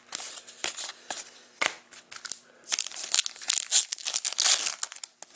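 Foil wrapper of a 2013-14 Upper Deck SP Authentic hockey card pack crinkling and tearing as it is opened by hand, with cards clicking and sliding against each other. The crinkling grows denser and louder past the middle.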